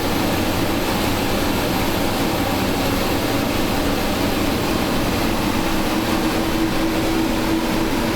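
Glassblower's propane hand torch with many jets, a Delta Elite, burning with a steady rushing noise. A steady low hum joins in about halfway through.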